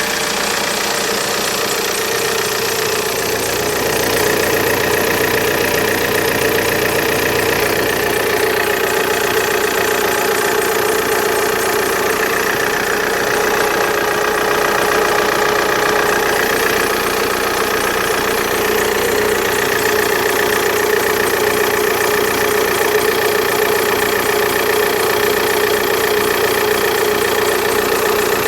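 Opel Insignia 2.0 CDTI four-cylinder diesel engine idling steadily, with a strange whistling sound: a steady high tone held over the engine note.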